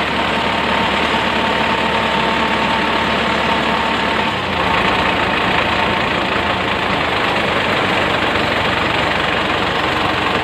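Truck engine running steadily, heard close up from beside the truck's underside; its note changes a little over four seconds in.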